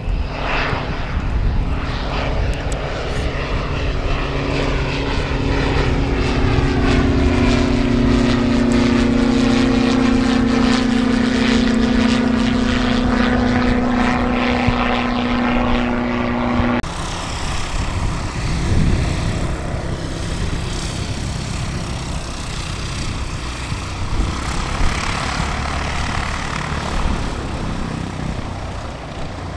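Light propeller aircraft's engine and propeller droning steadily, with a strong steady hum and sweeping bands above it as the aircraft moves. About 17 seconds in the sound cuts abruptly to a noisier, less tonal aircraft drone.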